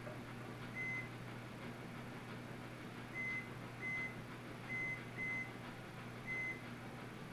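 Digital timer giving six short, high beeps at uneven intervals.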